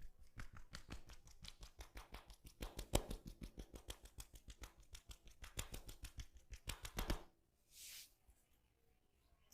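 Head massage: a fast run of crisp clicks and taps from hands working on the head and hair, about five or six a second, stopping about seven seconds in, followed by a brief hiss.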